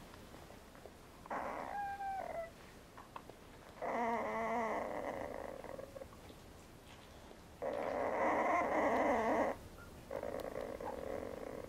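Sleeping newborn Brittany puppies squeaking and making rough, wavering whimpers in four short bouts. The first is a thin squeak that falls slightly in pitch; the later ones are longer and rougher.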